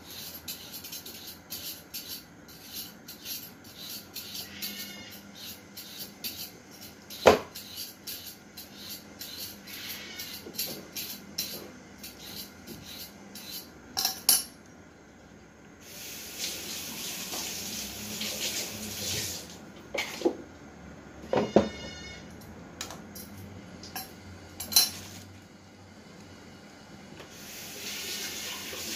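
Kitchen work at a sink: rapid light clicking and knocking of utensils on a chopping board, with one sharp knock about seven seconds in and a few more later. Water from the tap runs for a few seconds just past the middle and again near the end.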